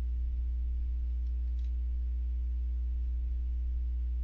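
Steady low electrical hum with a few fainter steady higher tones, unchanging throughout: the background hum of a home microphone recording.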